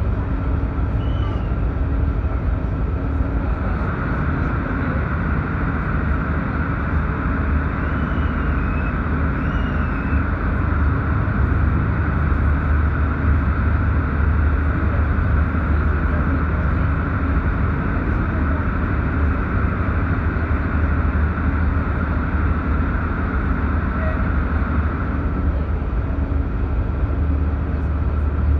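Running noise of a passenger train heard from inside the carriage: a steady low rumble of the wheels on the rails, with a higher steady hum coming in about four seconds in and fading a few seconds before the end.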